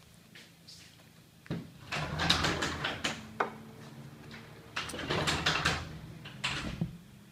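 Two stretches of close rubbing and scraping noise with clicks, each about a second and a half long.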